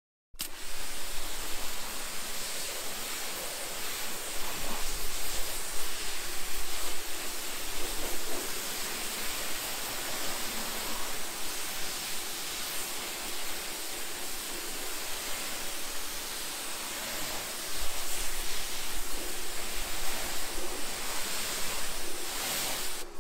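Steady hiss of a water spray rinsing car-wash foam off a car's body panels, louder for a few seconds twice.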